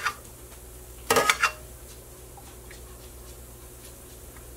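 A metal ladle clinking against a stainless steel stockpot in a short burst about a second in, while chicken stock is ladled out. Otherwise a low steady hum.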